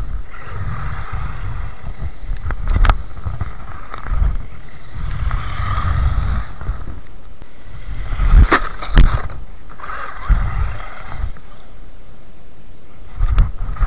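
WLtoys 12428 RC buggy running on a 2S LiPo, its electric motor and gears whining as it drives over snow and ice, rising and falling as it speeds up and passes. Wind buffets the microphone throughout, and there are four sharp knocks, two of them close together past the middle.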